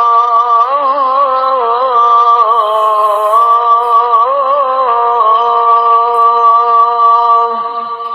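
A solo voice singing a slow, ornamented melody with long held notes, fading near the end.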